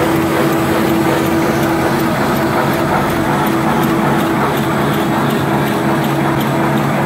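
Automatic full-embossing napkin folding machine running at speed: a steady mechanical hum with a constant drone and a faint regular ticking, about three ticks a second.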